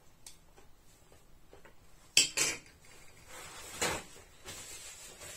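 Cutlery and dishes clattering: two sharp metal-on-plate clinks about two seconds in, then another clink a second and a half later.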